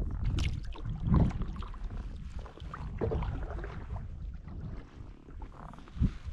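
Kayak paddle dipping into lake water, a few splashy strokes with water dripping between them, over a low rumble of wind on the microphone.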